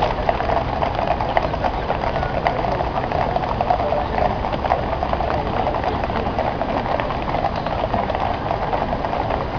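Shod hooves of a column of cavalry horses clip-clopping on the tarmac road, many hoofbeats overlapping in a dense irregular patter, over a steady background hum.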